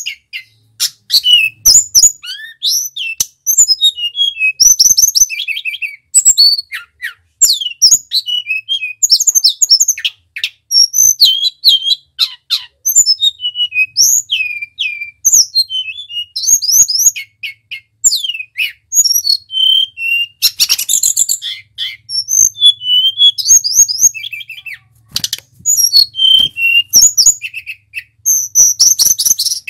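Male tledekan, a Cyornis blue flycatcher, singing a long run of rapid, varied whistled phrases with quick trills and up-and-down sweeps. The phrases come in bursts of a second or two with short pauses between them.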